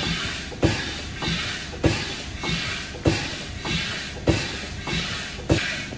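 Slow-running stationary steam mill engine: a sharp knock about every second and a quarter, a softer beat halfway between, each followed by a surge of hiss.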